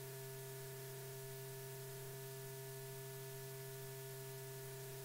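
Steady electrical hum with a few faint steady higher tones over even hiss: the background noise of an old film soundtrack.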